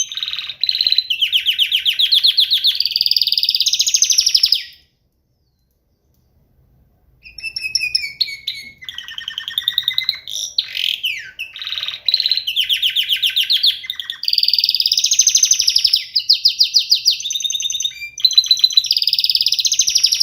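Roller canary singing: long, fast rolling trills and chops with some rising and falling whistled notes, broken by a pause of about two seconds near the start.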